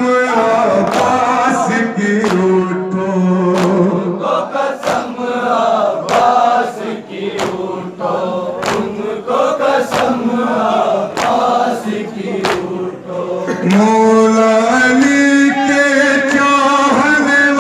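Men chanting a nauha, a Shia mourning lament, one voice leading through a microphone, over sharp rhythmic chest-beating (matam) in unison at about three strikes every two seconds. The chanting climbs higher and louder near the end.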